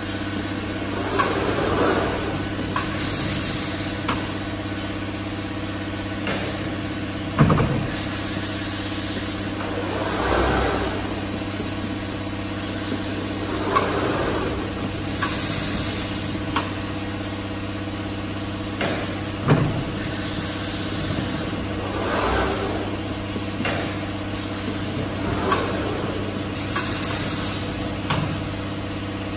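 Automated jug palletizer cycling: a steady hum from its drives, with short hisses of compressed air from the pneumatic gripper every few seconds as it picks and places plastic jugs. Twice there is a sharp knock as the gripper moves.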